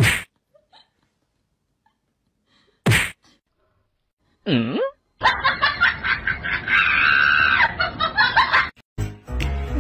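A sharp smack as a cat paws another cat's head, a second smack about three seconds later, and a short cry that slides down and back up. Then about three and a half seconds of dense, laughter-like noise, with music coming in near the end.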